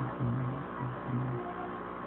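The tail of a hip-hop beat: a few low bass notes that stop about a second and a half in, leaving a steady electrical hum.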